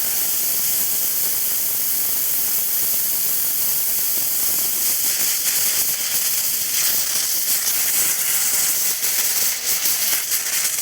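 High-pressure air venting from a freshly filled tank at around 4500 psi: a loud, steady hiss with a faint high whistle running through it.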